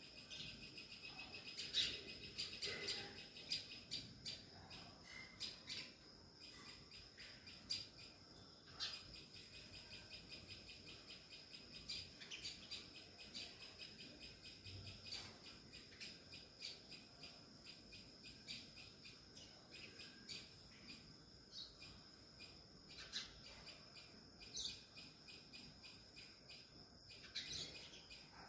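Faint outdoor ambience: a steady high-pitched insect drone with quick runs of short, high chirps, which thin out in the second half.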